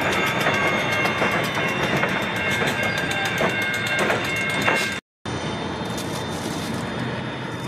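CSX freight train with diesel locomotives rolling through a grade crossing, wheels clacking over the rails, while the crossing bell rings in quick regular strikes. About five seconds in the sound drops out for a moment and comes back as a steady rumble of locomotives running, without the bell.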